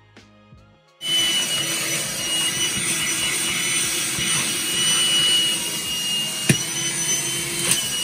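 Black & Decker Dustbuster cordless lithium-ion car vacuum switched on about a second in, running with steady rushing air and a thin high whine, kind of noisy. Two short clicks near the end.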